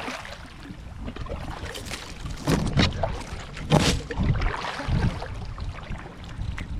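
Kayak moving on a fast river current: water sloshing and splashing against the hull and paddle, with a few sharp knocks about two and a half and nearly four seconds in, and wind on the microphone.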